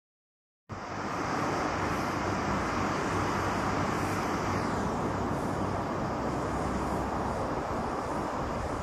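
Airport ambience: a steady, even rush of distant jet engine and vehicle noise. It cuts in abruptly from silence about a second in.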